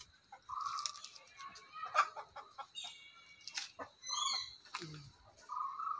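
Aseel chickens clucking in short repeated calls, with a few higher chirping calls and sharp clicks in between.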